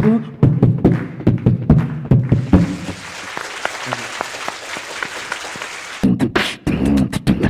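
Mouth-made vocal percussion, a fast run of clicks and voiced drum-like strokes. About two and a half seconds in, it gives way to audience applause for a few seconds, and the vocal beat starts again near the end.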